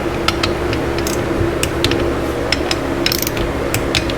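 Ratchet of a click-type torque wrench clicking in short, uneven runs as the bolts of a 1968 Honda CB350 engine are rechecked at 120 inch-pounds, over a steady background hum.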